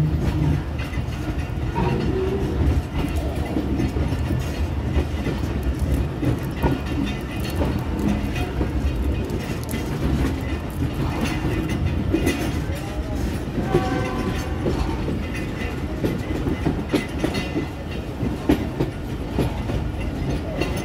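Passenger train departing, heard from on board: a steady rumble with wheels clacking irregularly over rail joints and points as it pulls out of the station.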